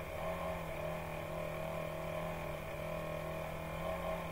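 Steady background hum with a few unchanging held tones, with no other sound standing out.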